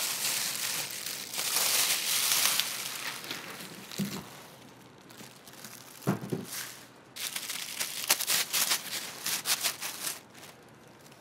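Plastic bag crinkling and rustling as it is worked over and pulled off a boxed 3D printer, loudest in the first few seconds and again as a run of quick crackles near the end, with a couple of short dull thuds in between.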